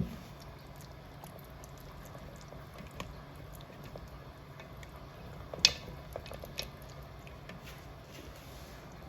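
Lamb and stock simmering in a covered pot, with scattered small bubbling pops and one sharper click a little past halfway, over a steady low hum.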